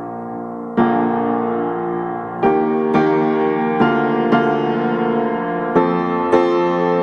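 Background piano music, slow chords and notes struck one after another.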